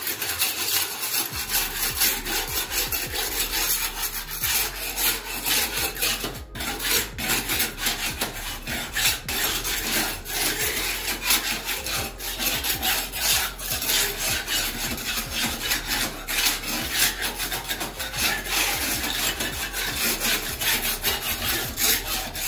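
Putty knife scraping residue off a clay brick wall in quick, repeated rasping strokes, cleaning the brick surface before tiling.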